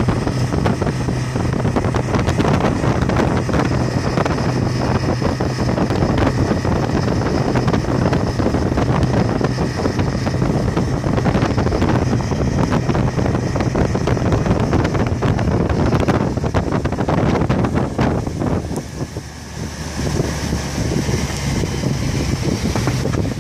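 Yamaha 150 outboard motor running steadily while the boat is under way, with wind buffeting the microphone and water rushing in the wake. The level dips briefly near the end.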